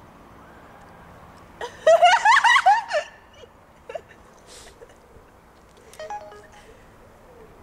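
A short burst of giggling laughter about two seconds in, followed by a few short electronic beeps from a mobile phone's keys.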